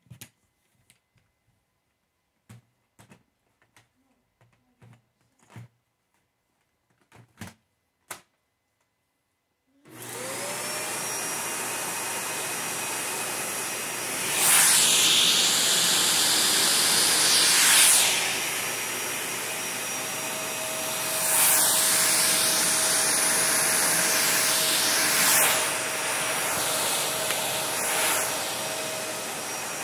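A few faint clicks, then about a third of the way in a vacuum cleaner switches on, its motor whine rising as it spins up to a steady run. The rushing sound swells louder several times.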